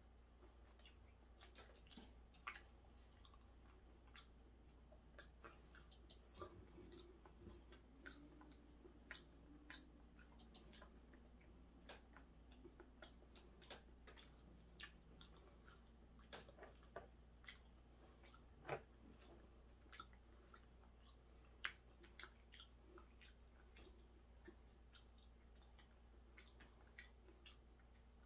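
Faint chewing of hairtail fish, with scattered small clicks of wooden chopsticks against plates, a few of them louder, over a low steady hum.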